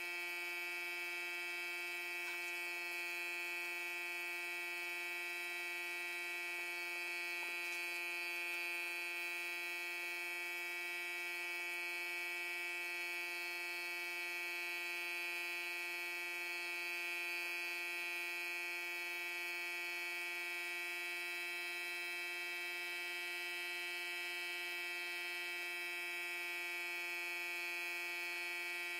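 Electric air compressor running, a steady buzzing hum at one unchanging pitch.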